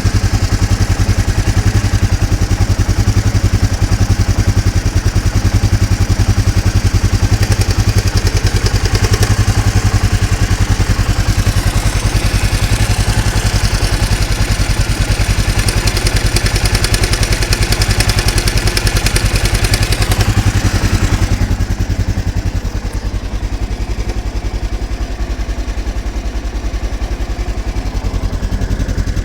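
Suzuki DR 800 single-cylinder engine idling with a strange mechanical noise that the owner cannot explain. He says it is louder with a cold engine, though the balancer shaft chains are tightened to the manual. About two-thirds of the way through, the higher-pitched part of the noise drops away and the whole sound gets a little quieter.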